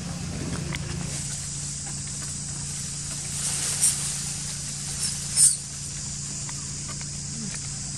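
Two short, shrill animal squeaks, the first just under four seconds in and a louder one about a second and a half later, over a steady insect-like buzz and a low hum.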